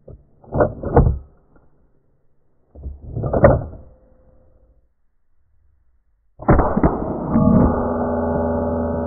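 Slowed-down sound of a Rossi Gallery pump-action .22 LR rifle: two deep clunks about half a second and a second in, another about three seconds in, then at about six and a half seconds a loud hit that rings on in long steady tones, fading slowly.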